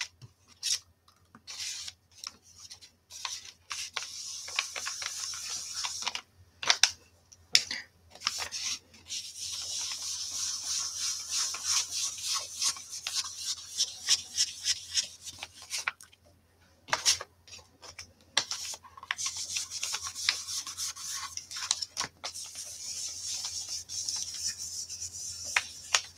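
A round blending brush rubbed in circles over white cardstock to blend ink into a sky, giving a soft scratchy swish. There are short separate strokes at first, then long continuous brushing from about a third of the way in, with a short pause around the middle.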